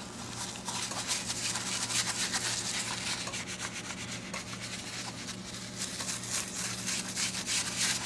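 Small boar's hair brush scrubbing a leather shift boot in quick, continuous strokes, a steady scratchy brushing, as it works leather cleaner into the leather to suds it up and loosen dirt. A faint steady low hum runs underneath.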